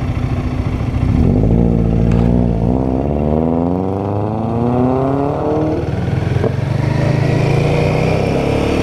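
Royal Enfield Guerrilla 450's single-cylinder engine accelerating, its pitch climbing for about five seconds with a short drop about two and a half seconds in as it shifts up a gear, then settling to a steadier drone.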